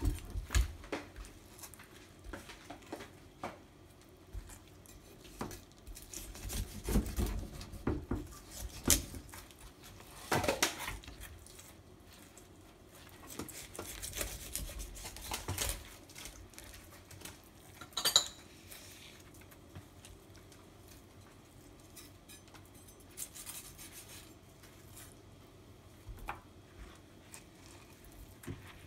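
Kitchen knife cutting and scraping through a whole morwong on a wooden chopping board, with scattered knocks and clatter of blade and fish against the board and steel sink. A sharp clink about eighteen seconds in.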